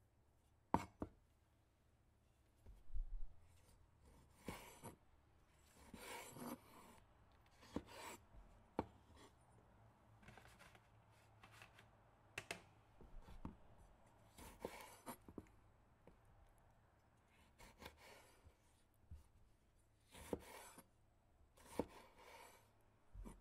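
Chef's knife cutting bell pepper and cherry tomatoes on a wooden cutting board: irregular sharp knocks of the blade on the board and short slicing and scraping sounds, with pauses between. The loudest knock comes about a second in.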